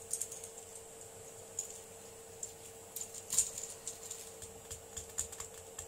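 Irregular small plastic clicks and ticks as the jointed legs of a 3D-printed print-in-place octopus are worked by hand, freeing up its stiff printed hinges. A louder cluster of clicks comes a little past the middle.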